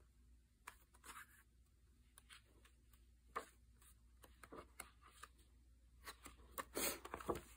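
Pages of a softcover book being turned by hand: faint paper flicks and rustles, with a louder run of rustling near the end.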